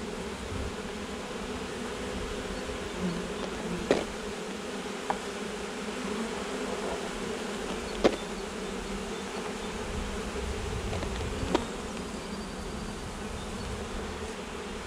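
Honeybees of a swarm clustered on the outside of the hive buzzing steadily in a dense hum. A few sharp clicks cut through it, the loudest about eight seconds in.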